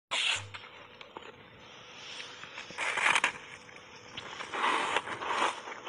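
Mouth working on a block of refrozen ice coated thickly in matcha powder: soft, noisy scraping rustles just after the start, about three seconds in and near five seconds, with a few faint clicks.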